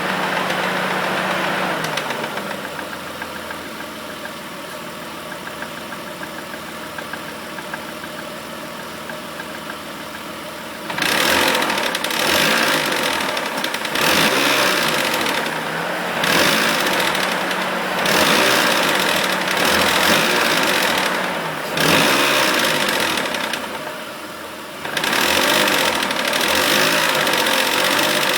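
The 2001 Mitsubishi Eclipse GT's 3.0-litre V6 idles steadily for about ten seconds. It is then blipped about eight times, each rev lasting one to two seconds, roughly every two seconds. The engine is being revved to bring out a tick that the owner takes for lifter tick.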